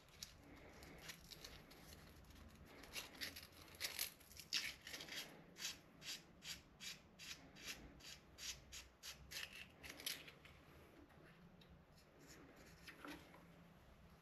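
Sandpaper scuffing a brass pen tube by hand in quick back-and-forth strokes, about two to three a second through the middle, faint and dying away near the end. The brass is being roughed up so the glue will grip it.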